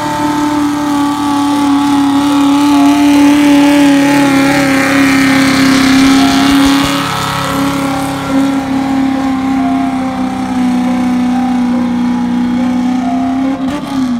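Pickup truck engine held at high, steady revs under heavy load while pulling a weight sled, tyres spinning in the dirt; the pitch sags slightly a couple of times and drops right at the end as it lets off.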